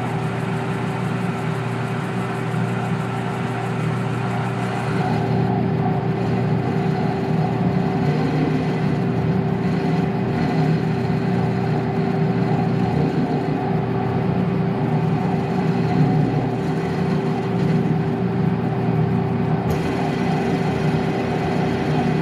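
Metal lathe running steadily, its chuck spinning a steel Model T driveshaft while taking a light finishing cut to bring the diameter to size, with a constant motor hum under the machining noise.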